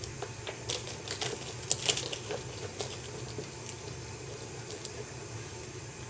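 Bootlace being pulled through the metal eyelets of a Caterpillar boot: a run of small clicks and rustles, busiest in the first three seconds and loudest about two seconds in, then sparser, over a steady low hum.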